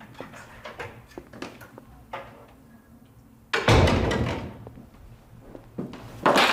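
A wooden front door being opened: faint clicks, then a loud thud about three and a half seconds in that dies away over about a second.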